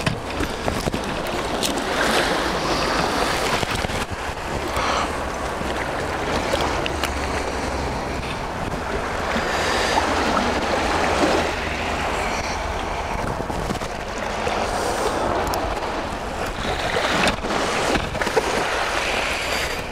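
Sea surf washing onto the shore, swelling and easing every few seconds, with wind buffeting the microphone.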